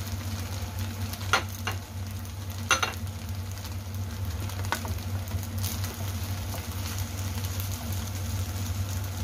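Rice vermicelli stir-frying and sizzling in a nonstick wok, with a few sharp scrapes and knocks of the spatula against the pan, mostly between about one and three seconds in and again near five seconds. A low steady hum runs underneath.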